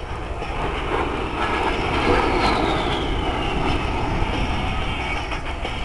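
A-10 Thunderbolt II's twin TF34 turbofan engines during a high-G turn. The jet noise swells about two seconds in, and the engine whine falls in pitch as the jet sweeps past.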